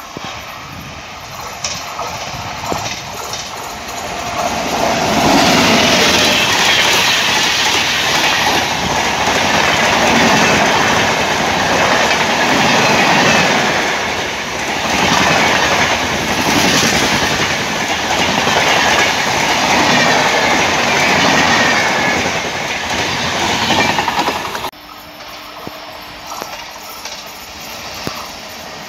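Passenger express train approaching and passing close at speed, its coaches' wheels running over the rails with a repeating clatter as the bogies pass. About 25 seconds in the sound cuts off abruptly to a quieter scene in which another train is heard approaching from a distance.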